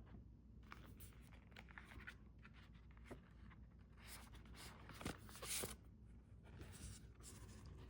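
Faint rustling and handling of paper album inclusions, as a packet is opened to reveal stickers. There are scattered light rustles and clicks, with a louder rustle about five seconds in.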